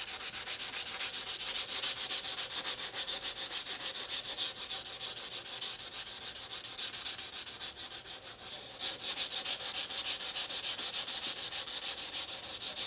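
180-grit sandpaper rubbing back and forth over hardened putty on a plastic model kit's saucer seam, in rapid, even strokes. It eases off for a few seconds around the middle, then comes back stronger.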